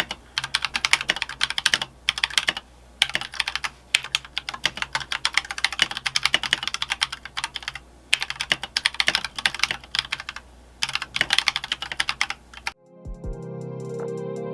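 Typing on an Akko World Tour Tokyo full-size mechanical keyboard: rapid bursts of key clacks separated by short pauses. The typing stops abruptly near the end and music begins.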